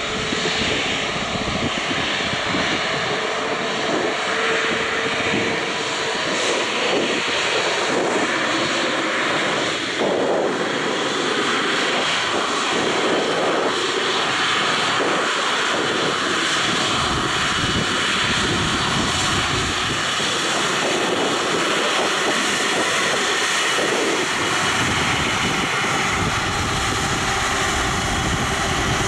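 Airbus A330-300's twin turbofan engines running at low taxi power as the airliner taxis, a steady jet hiss and whine that keeps an even level throughout.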